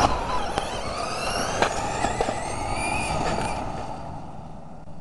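High-speed electric RC car running flat out, its motor whine rising steadily in pitch as it accelerates, over a rush of road and wind noise; the sound fades away after about three and a half seconds.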